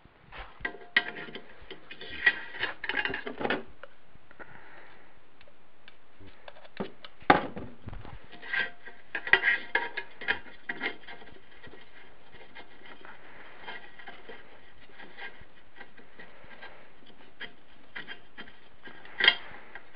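A steel shift rail being worked by hand into a Wheel Horse transmission case and shift fork: scattered metal clicks, scrapes and rubbing, with a couple of sharper knocks, one about seven seconds in and one near the end.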